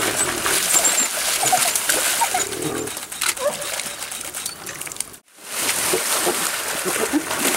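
Water splashing as spotted hyenas charge through shallow water at a red lechwe ram, with many short yelps and squeals from the animals. The sound drops out for a moment about five seconds in, and the splashing is heavier after that.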